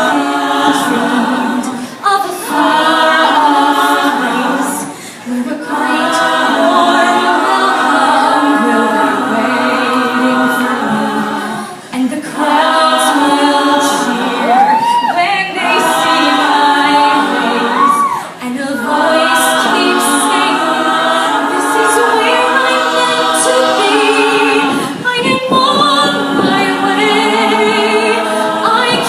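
All-female a cappella group singing in close harmony with no instruments, phrase after phrase with brief breaths between, and a voice swooping up and down in pitch about halfway through.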